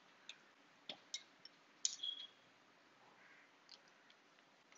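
Light clicks and taps of a four-piece travel popping rod's sections being handled and fitted together, a few scattered strokes with the loudest cluster about two seconds in.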